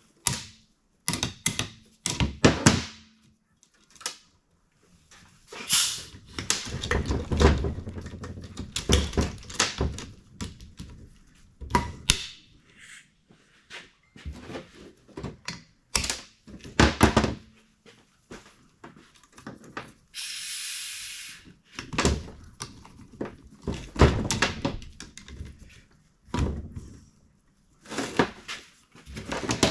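Repeated metallic clicks, clacks and knocks of tools and valve-train parts being handled while the valves are pulled from a Ford FE 390 cylinder head. A short hiss comes about twenty seconds in.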